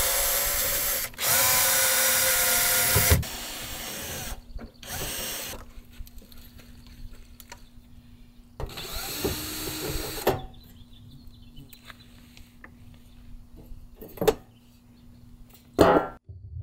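Cordless drill-driver motor running in two bursts of a couple of seconds each, backing out screws, followed by fainter short runs and a few clicks.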